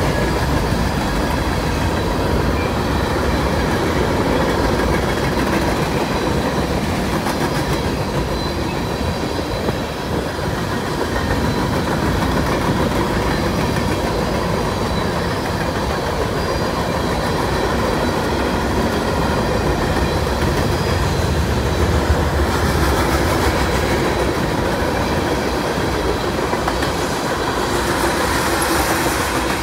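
Freight train cars, covered hoppers and then tank cars, rolling past close by. Their steel wheels clatter on the rails in a steady, unbroken noise.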